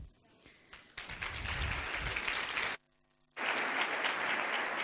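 Audience applauding, starting about a second in. The clapping breaks off for about half a second near the middle, then resumes.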